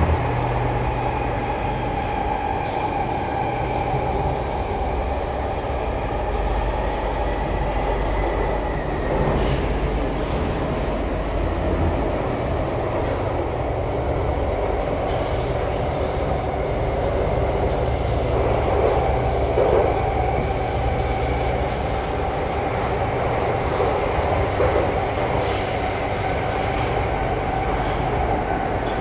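SMRT C751B metro train running through a tunnel, heard from inside the car: a steady rumble of wheels on rail with a whine from its permanent-magnet synchronous traction motors.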